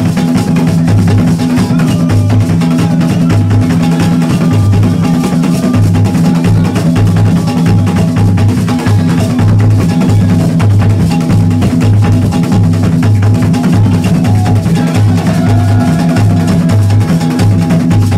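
West African drum ensemble playing fast Agbekor, the Ewe war-dance drumming. Low drum strokes repeat steadily under a dense layer of higher drum parts.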